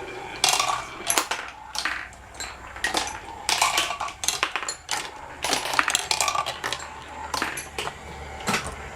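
Marbles rolling and clattering through a mini marble run, with many quick irregular clicks and rattles as they hit the track and each other.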